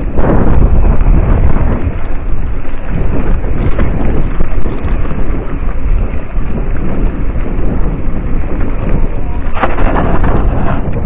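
Wind buffeting a mountain biker's camera microphone and the bike rumbling over a dry, bumpy dirt trail: a loud, low, rough noise with irregular knocks, growing harsher near the end.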